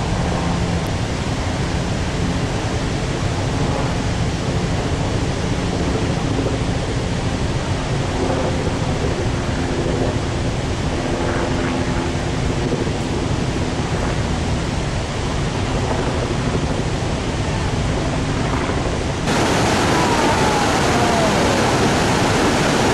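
Zambezi River white water rushing over rocks in steady, unbroken noise. About 19 seconds in it turns abruptly louder and brighter as the cascades at the lip of the falls come in.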